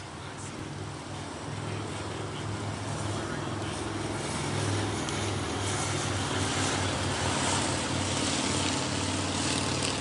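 Road traffic: cars driving past on a street, a steady mix of tyre and engine noise that grows louder in the second half.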